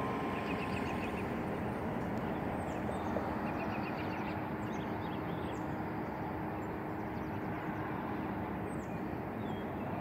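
Steady outdoor background noise of road traffic, with small birds chirping in short quick runs of high notes and a few thin falling whistles; the church bells are silent.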